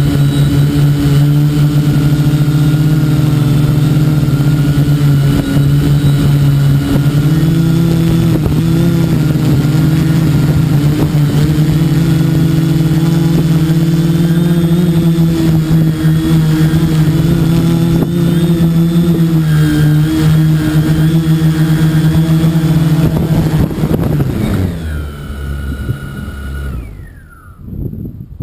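Quadcopter's electric motors and propellers buzzing steadily, heard close up from on board, the pitch wavering a little as the throttle shifts. About 25 seconds in the motors wind down, the pitch sliding downward, and stop as the drone lands in the grass.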